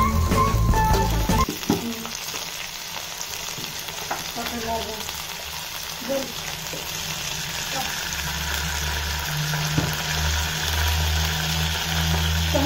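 Butter sizzling steadily in a nonstick wok as ginger, garlic and Kashmiri chilli pastes fry in it. A brief loud low rumble sounds at the start, and a low hum joins about two-thirds of the way in.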